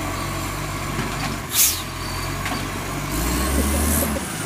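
Diesel engine of an Iveco rubbish truck running as it pulls past, with a short sharp air-brake hiss about a second and a half in. Near the end the engine's low rumble grows stronger as it moves off.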